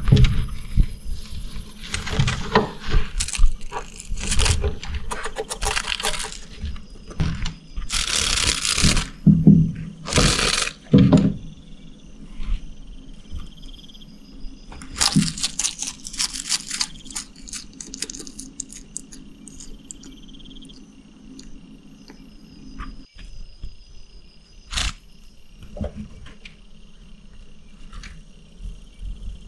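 Bearded dragon chewing a dragonfly: irregular crunching and crackling, busiest in the first half, with a few louder bursts of noise about eight to eleven seconds in.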